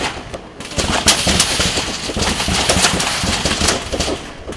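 Rifle fire from many shooters at once, heard from the target pits: sharp cracks in quick, irregular succession, thickening about a second in over a steady low rumble.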